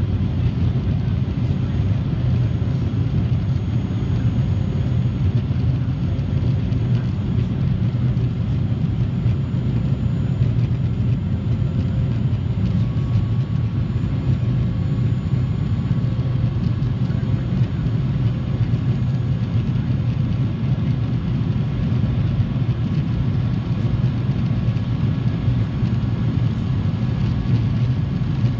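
Steady drone inside the cabin of a Boeing 737-400 climbing after takeoff: its twin CFM56 turbofan engines and the rush of air over the fuselage, heard from a window seat over the wing, with a low hum and an even hiss above it.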